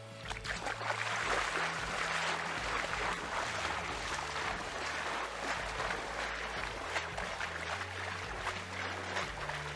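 Lake water splashing and sloshing around a person's legs as he wades out into shallow water, a continuous patter of small splashes that starts a moment in.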